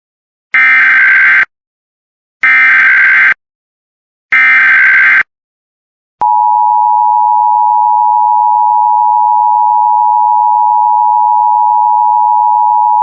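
Emergency Alert System broadcast: three short bursts of SAME header data tones, a harsh digital warble about a second each, then from about six seconds in the steady two-tone EAS attention signal, held without a break.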